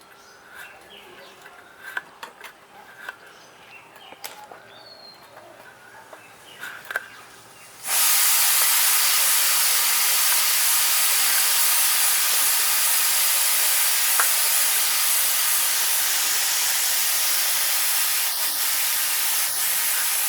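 A few faint taps and clicks, then a loud steady hiss that starts abruptly about eight seconds in and holds even, like steam venting.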